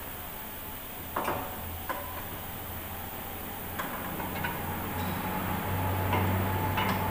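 About six sharp metallic clinks and taps of hand tools against the car's front hub and suspension parts, a few ringing briefly, over a steady low hum.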